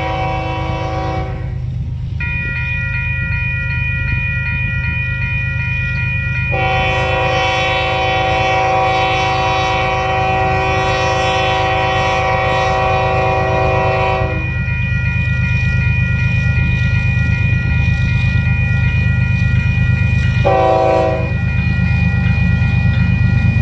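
Horn of an approaching Union Pacific GE Evolution-series (GEVO) diesel locomotive sounding a chord of several notes in long blasts, with one short blast about 20 seconds in, in the pattern of a grade-crossing signal. Under it runs a low rumble from the oncoming locomotive and train that grows louder.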